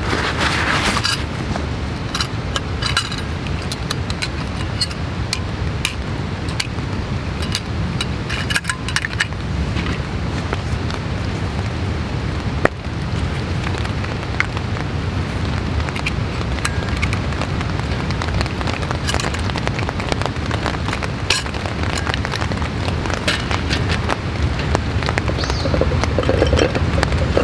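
Steady light rain falling on a canvas tarp, with scattered clicks and knocks of camp gear being handled: a single-burner gas stove and its canister set up on a metal mesh table, and a clay pot set down on the burner. One sharp click stands out about halfway through.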